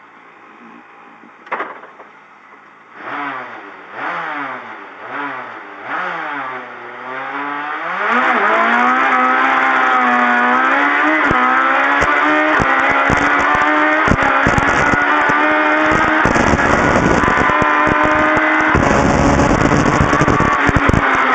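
Toyota Starlet rally car's 1800cc engine idling faintly, then given four quick throttle blips about a second apart. At about eight seconds the car launches and the engine runs loud and hard at full throttle, with crackles through it, as it accelerates away.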